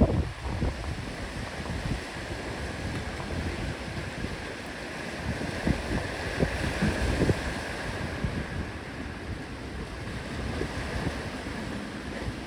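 Ocean surf washing on a rocky shore, with wind gusting on the microphone in uneven bumps.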